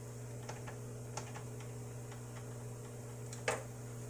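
Corn tortillas warming on an oiled comal on an electric stove: a few faint ticks, then one sharper click about three and a half seconds in, over a steady low hum.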